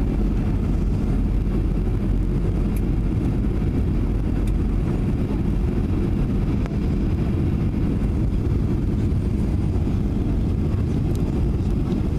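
Cabin noise inside a Boeing 737-700 on approach: a steady low roar of its CFM56 engines and the airflow, with the landing gear down.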